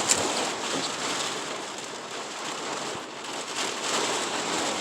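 Heavy rain pouring down in a storm, a steady hiss.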